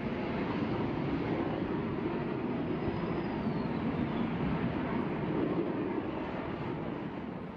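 Jet aircraft engine noise, a steady rushing sound that starts to fade near the end.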